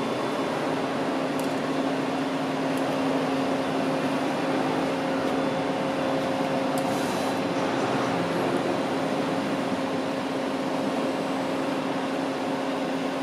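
Hwacheon Hi-Eco 21HS CNC lathe powered up and idling: a steady machine hum with a constant low tone, and a short hiss about seven seconds in.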